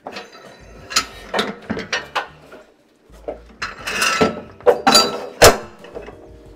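Metallic clanks, knocks and rattles from the steel bar and fittings of a hydraulic expansion tool being handled as its pump is released, with a short jangling stretch about four seconds in and the sharpest knock about a second later.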